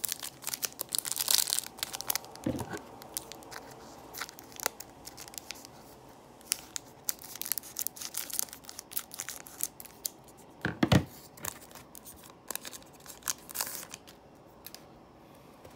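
Foil wrapper of a trading card pack being torn open and crinkled by hand, in bursts of crackling and rustling, with cards shuffling. A soft thump about eleven seconds in is the loudest sound.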